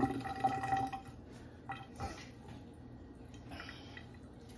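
Water running from a kitchen tap, stopping about a second in, followed by a few faint clicks and knocks.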